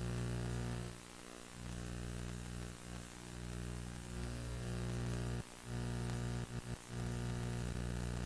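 Faint steady electrical hum with a buzz of evenly spaced overtones and light static. It cuts out briefly several times.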